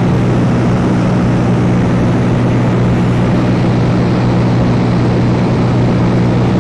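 Cessna light aircraft's engine and propeller droning steadily in flight, heard from inside the cabin: a constant low hum over a wash of noise.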